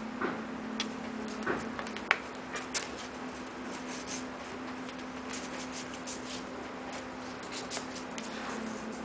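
Hands handling packaging at close range: scattered light clicks, taps and paper-like rustles, one sharper click about two seconds in, over a steady low hum.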